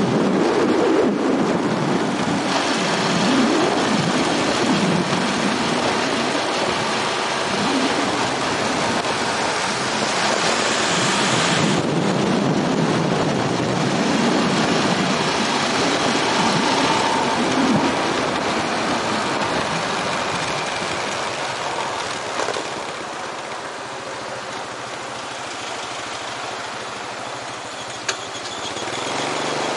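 Motorbike engine running while riding, with heavy wind rushing over the microphone. The engine note wavers up and down with speed for the first part, and the whole sound grows quieter in the last third as the bike slows in traffic. There is a single short click near the end.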